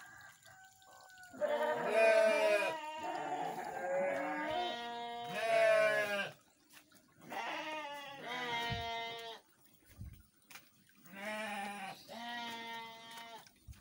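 Goats bleating: about four long, wavering calls with short pauses between, two of them overlapping in the middle.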